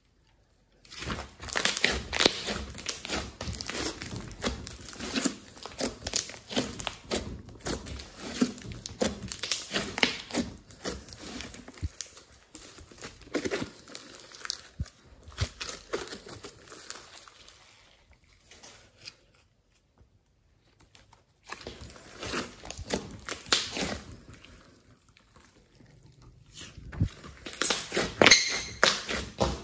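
Thick glossy slime mixed with clay being stretched, pulled apart and kneaded by hand, giving dense runs of small crackles and pops. It goes almost quiet for a few seconds past the middle, then starts again, loudest near the end.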